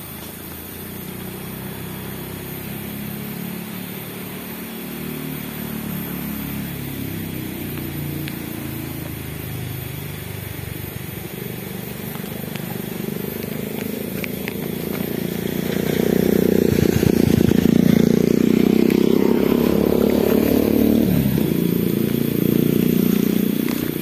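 Motorcycle engine running, growing gradually louder and loudest over the last third.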